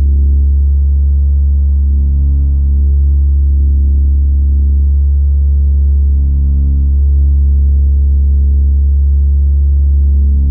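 No-input mixer feedback: a loud, deep, steady drone, with fainter higher tones above it that shift a few times.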